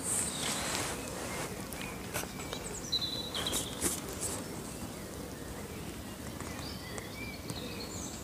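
Birds chirping over a steady outdoor background hiss, with a few sharp clicks and knocks near the start and around three to four seconds in as a fishing pole and landing net are handled while a hooked fish is played.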